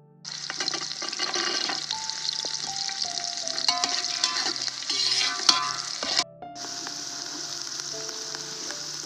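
Chopped onions and green pigeon peas sizzling as they fry in an aluminium pot, with a perforated steel ladle stirring and scraping against the pot. The sound cuts out briefly about six seconds in.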